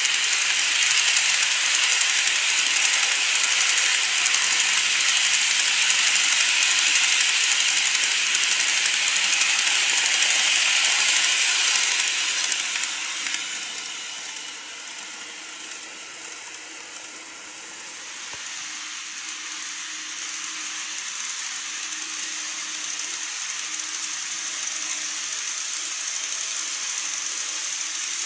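N-gauge model trains running on plastic track, a steady high rolling hiss and whir of wheels and motor. The first train is loud and fades away over about twelve to seventeen seconds; a second one builds in from about eighteen seconds.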